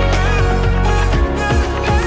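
Background pop song with a steady beat and a sung melody.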